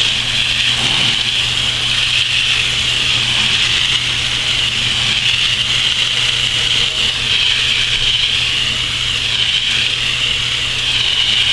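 Garden hose spraying water onto the fins of an air-conditioner condenser coil, a steady hiss with a low hum underneath.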